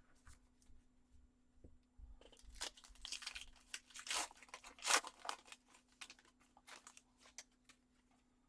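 A foil trading-card pack wrapper being torn open and crinkled: a flurry of crackly tearing and crinkling starting about two seconds in and peaking around five seconds, then a few scattered crinkles.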